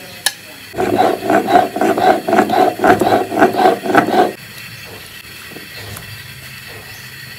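Stone roller grinding a wet spice paste back and forth on a pitted stone slab (shil-nora), a rhythmic stone-on-stone scraping of about four or five strokes a second. It starts about a second in and stops after roughly four seconds, with a single sharp click just before it begins.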